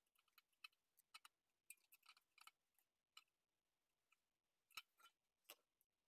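Faint, scattered clicks and taps of the opened iPod's plastic front half, metal back shell and internal parts being handled and knocked together during disassembly, with two sharper clicks near the end.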